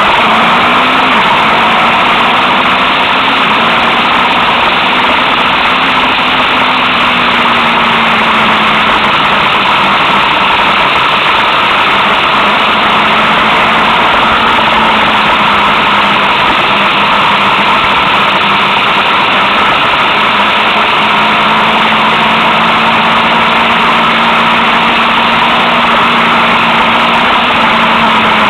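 Motorcycle engine running at cruising speed, its note rising and falling gently with the throttle, under a loud steady rush of wind and road noise.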